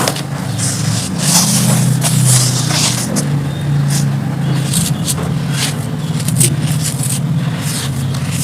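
Dry charcoal crumbling and being crushed: a dense run of irregular crisp crunches and crackles, over a steady low hum.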